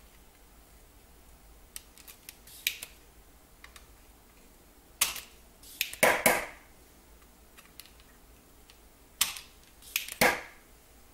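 Desoldering iron's solder sucker snapping as it is released to pull molten solder off a chip's pins. The sharp snaps come in two groups, about five to six seconds in and again about nine to ten seconds in, with a few faint ticks in the first three seconds.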